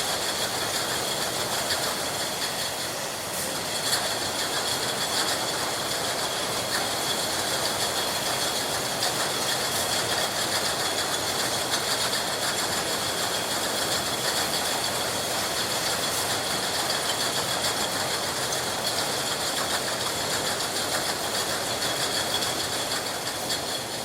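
Milk bottling plant's filling line running: steady machinery noise with a thin high whine and a continuous fine clatter.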